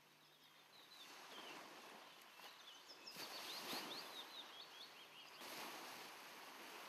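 Faint birdsong, a run of quick high chirps, over a soft rushing noise that swells for a couple of seconds in the middle.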